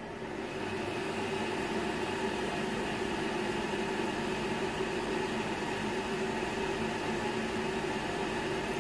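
The cooling fans of a second Cisco Catalyst 3750G network switch starting up at power-on. They give a steady whir with hum, which rises in level over the first second and then holds, added to the fan noise of the first switch already running. The fans run at full speed while the switch boots.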